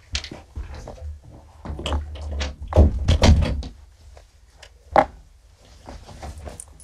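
Plastic pet carriers being handled and stacked one on top of another: a run of plastic knocks and rattles about three seconds in, and one sharp knock about five seconds in.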